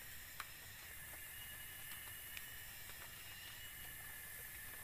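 Steady outdoor hiss with faint high steady tones, and a few soft clicks and rustles as bundles of alang-alang (cogon) grass are tied onto a bamboo slat to make a thatch panel.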